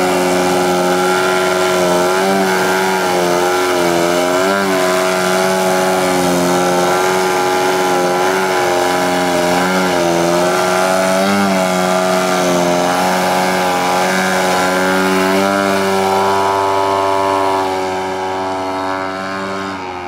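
3W 56iB2 twin-cylinder petrol engine and propeller of a large radio-controlled aerobatic plane running at hovering throttle, its pitch wavering slightly with small throttle changes. Near the end it grows fainter as the plane climbs away.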